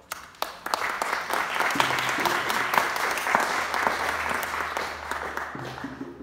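Small audience applauding, individual claps distinct, starting suddenly and tapering off near the end.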